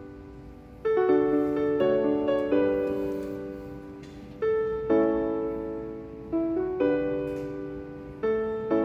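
Slow, gentle piano music: chords and notes struck every second or two, each ringing on and fading before the next.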